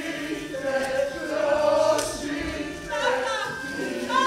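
Many voices singing together as a chorus, several at once, with shouted voices mixed in.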